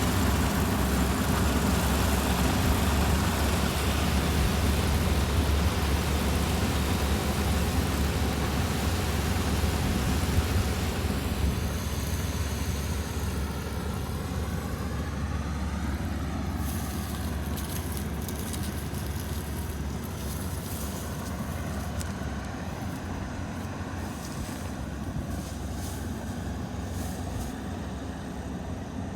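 Kubota rice combine harvester's engine and threshing machinery running steadily, a low rumble with broad machine noise that grows gradually quieter in the second half.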